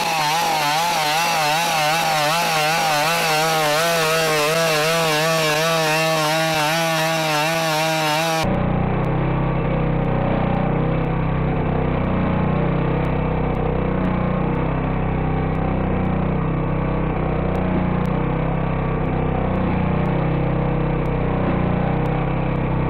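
BigDog quadruped robot's small two-stroke engine, driving its hydraulics, running loud with a chainsaw-like buzz, its pitch wavering regularly up and down. About a third of the way in the sound cuts to a duller, noisier recording of the same running engine.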